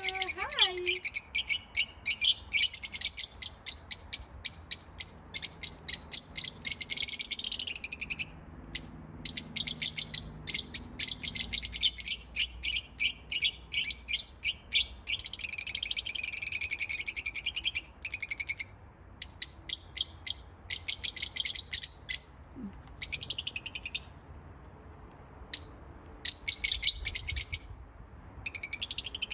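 Several budgerigars (budgies) chattering, a dense stream of quick high chirps and warbles in bouts, broken by short pauses.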